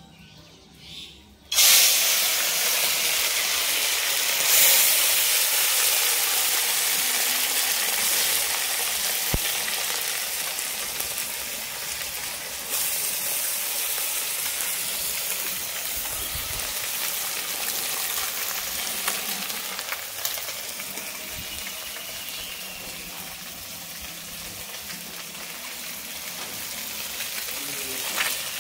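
Small fish sizzling as they fry in hot mustard oil: the sizzle starts suddenly and loudly about a second and a half in, as the fish go into the oil, then runs on steadily and slowly fades.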